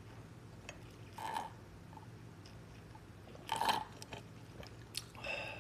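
Someone drinking an iced drink through a straw: three short sipping and swallowing sounds, about a second in, past halfway, and near the end.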